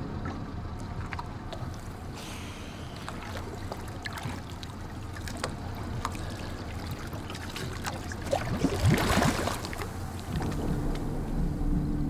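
Water sloshing and lapping around a diver at the side of a small boat, with scattered small knocks and splashes. About nine seconds in comes a louder rush of splashing and bubbles as the diver goes under.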